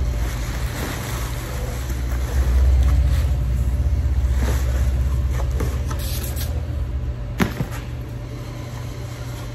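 Steady low rumble, with faint rustling of bubble wrap and packaging as a cardboard box is unpacked, and a sharp knock about seven seconds in as a padded case is set down on the box.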